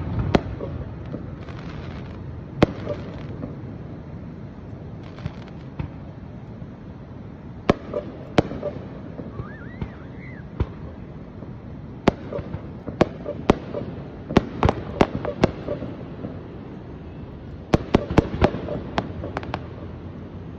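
Aerial firework shells bursting at long range: scattered sharp bangs over a low rumble, coming thicker and faster in two busy runs in the second half.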